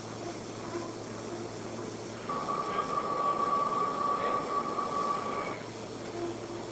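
Eurolaser XL-3000 100 W laser cutting system running while it cuts synthetic leather: a steady machine hum, joined about two seconds in by a louder steady whine that stops about a second before the end.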